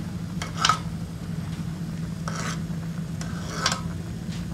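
A utensil scraping against a cooking pot in a few short strokes, over a steady low hum.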